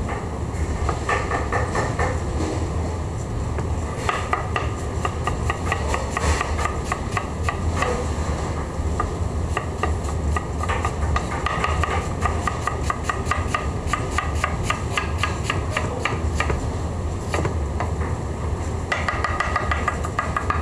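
Chef's knife rapidly chopping and shredding cabbage on a plastic cutting board: a quick run of sharp knocks, several a second, with two short pauses. A steady low hum runs underneath.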